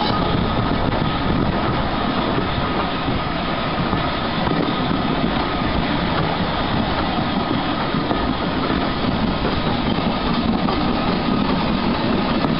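Bagnall 0-4-0 saddle-tank steam locomotive running with its train, heard from the window of the carriage behind it. There is a steady, loud rush of locomotive and running noise, with the wheels clattering on the rails.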